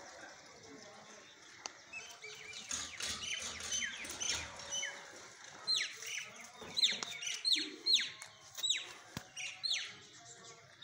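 Small birds chirping: scattered short calls, then a quick run of short calls that each fall in pitch, two or three a second, in the second half.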